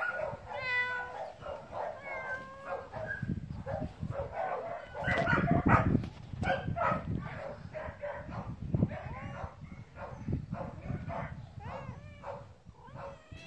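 Pet animals calling in a busy, overlapping run of short yips, whines and barks, with a few rising-and-falling meow-like cries near the end. The loudest burst comes about five to six seconds in.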